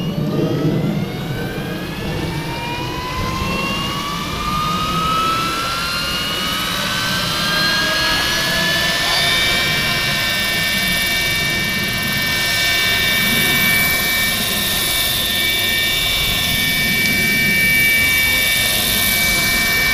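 Electric motor and gearing of a large five-blade RC helicopter spooling up the rotor: a rising whine that levels off at a steady high pitch about nine seconds in as the rotor reaches flying speed.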